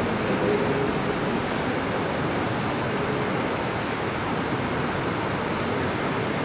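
Steady, even rushing noise of a running fan, with no speech.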